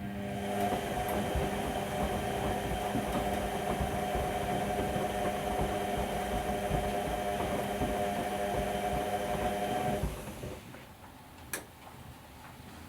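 Whirlpool Indiana 1400 washing machine running mid-cycle: a steady motor hum made of several tones, over an uneven low rumble. It starts suddenly, runs about ten seconds and stops, and a sharp click follows a second and a half later.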